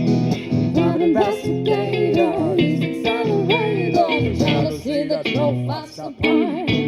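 A band playing a song: guitars and bass over a beat, with a melodic line bending up and down in pitch.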